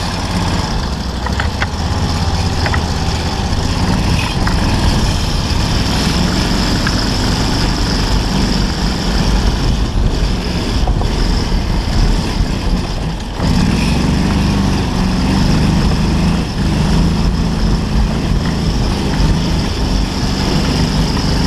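Off-road buggy engine running while driving over rough ground, its note rising and falling with the throttle. About thirteen seconds in it drops briefly, then comes back with a clearer, steadier tone.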